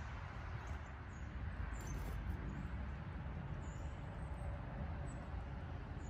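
Small woodland songbirds giving a few faint, short, high chip notes, scattered over a steady low rumble of outdoor background noise.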